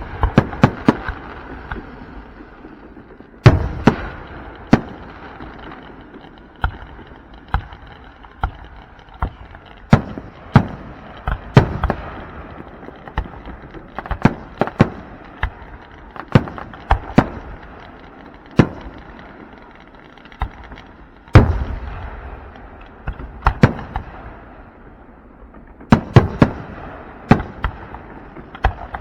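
Aerial fireworks display: shells bursting in a steady run of sharp booms at irregular intervals, a few much louder than the rest, each rolling off in an echoing rumble, with crackling between them.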